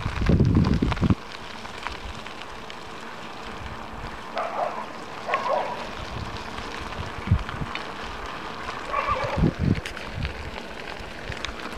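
Wind buffets the microphone with a heavy rumble for about the first second, then cuts out, leaving a steady hiss of movement along a wet road. A few brief faint sounds and light clicks come through the hiss.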